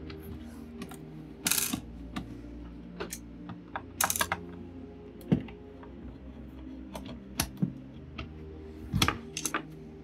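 Irregular sharp clicks and taps of a hand screwdriver backing small screws out of a robot vacuum's plastic housing, with the screws and plastic parts knocking as they are handled, about a dozen unevenly spaced.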